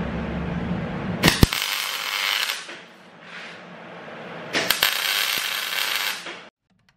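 MIG welding arc crackling and sizzling on a large steel nut, in two bursts of about a second and a half each, with a short faint one between. A steady low hum runs before the first burst.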